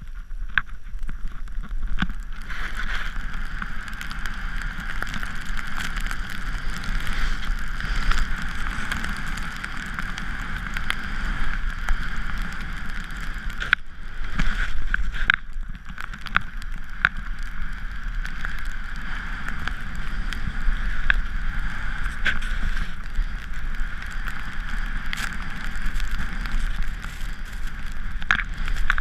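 Steady rush of wind over a moving action camera's microphone during a descent of a snowy slope, with the hiss and scrape of sliding over snow and scattered sharp clicks.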